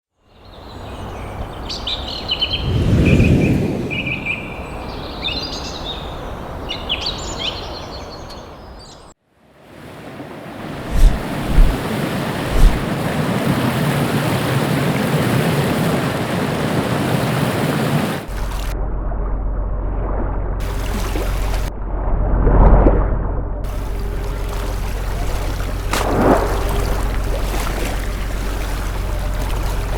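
Edited sound-effects montage in three sections. First, bird chirps over a low whooshing swell. After a sudden cut, a dense rushing noise like surf with three sharp thuds. After another cut, a steady low rumbling drone with two swells.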